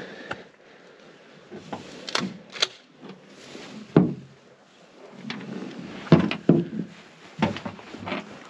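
Gear being rummaged through in a pickup truck bed: rustling, broken by several knocks and clunks. The loudest come about four and six seconds in.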